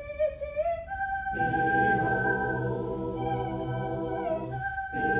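Chamber choir singing a Christmas spiritual without words that can be made out: at first a single high line, then about a second and a half in the full choir comes in on held chords, with a short break for breath just before the end.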